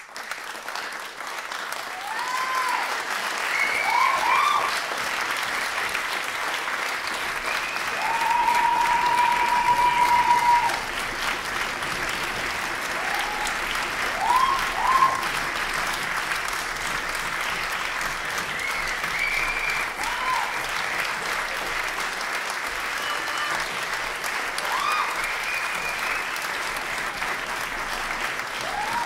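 Audience applauding steadily at a curtain call. Several short high calls rise and fall over the clapping, and one call is held for about two seconds near the middle.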